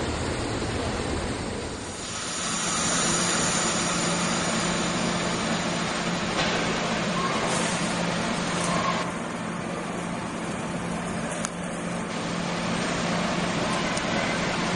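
For the first two seconds, outdoor train noise from an approaching diesel locomotive; then a SEPTA Silverliner electric multiple-unit train standing at an underground platform gives a steady low hum with its equipment running, under an echoing hiss of station noise that grows a little louder near the end.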